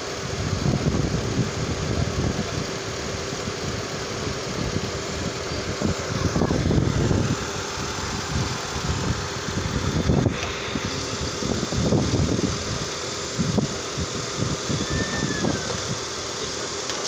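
Car engine idling steadily under the open hood, with a constant hum, swelling louder several times for a second or so.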